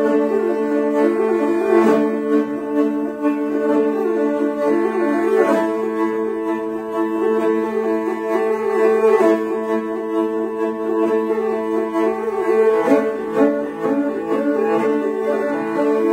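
Two morin khuurs (Mongolian horsehead fiddles) bowed together in a duet: a fast, busy running melody over steady held drone notes.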